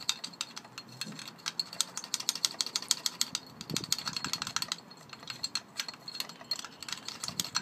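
Quick, irregular small clicks and rattles of metal parts being handled on a live-steam model locomotive.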